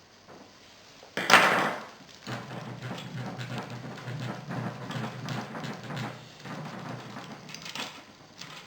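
Brake lever and parts being worked off a bicycle handlebar: a loud clunk about a second in, then several seconds of rattling and scraping, and a few clicks near the end.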